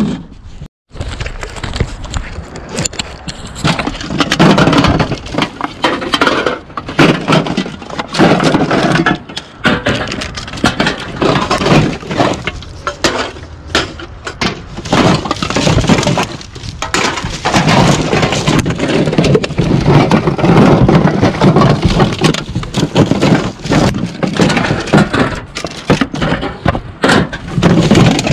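Gloved hands rummaging through blue recycling bins, empty aluminium cans, bottles and crumpled plastic clattering, clinking and crinkling in a continuous irregular jumble.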